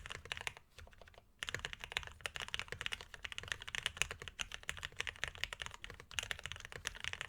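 Fast typing on a mechanical keyboard with lubed linear Polaris Gray 62 g switches on an aluminium plate, a dense run of keystroke clacks with a short pause about a second in.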